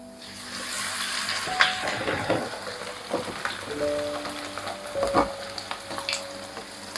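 Pieces of tempeh dropped into hot oil in a wok, sizzling hard as they start to fry, with a few sharp clacks of metal tongs and the plastic container against the pan. Soft piano music plays underneath.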